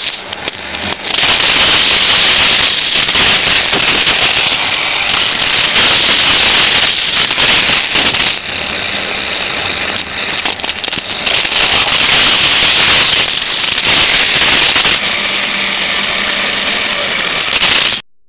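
Loud, continuous rattling and clattering of a toy car carrying the camera as it runs along plastic Hot Wheels track. It grows louder about a second in and cuts off suddenly near the end.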